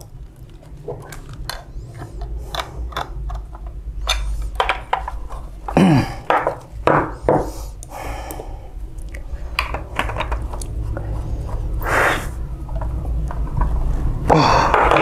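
Plastic and metal parts of a photocopier's waste-toner unit being handled during reassembly: scattered clicks and knocks, with a few louder handling noises, over a steady low hum.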